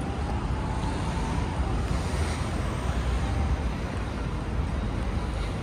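Steady city street noise: a low, even rumble of road traffic.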